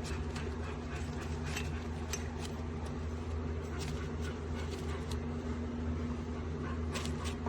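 Faint crinkling and light taps of a paper coffee filter being pressed into a percolator's metal basket, a few at a time, over a steady low electrical hum.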